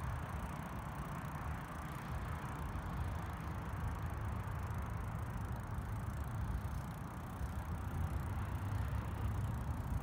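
Steady noise of a bicycle ride on a concrete path: low wind noise on the microphone over the sound of tyres rolling.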